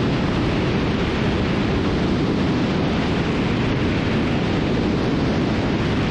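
Steady rushing noise of a twin-engine Cessna T310R in cruise flight: engine and airflow noise blended into an even roar with no distinct tones.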